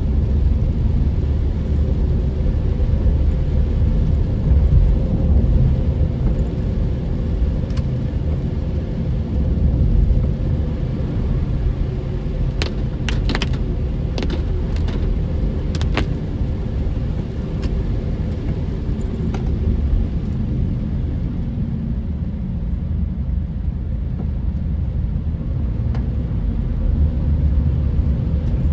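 Steady low rumble of a car driving on a wet road, heard from inside the cabin: engine and tyres on wet tarmac. A handful of short sharp clicks come about halfway through.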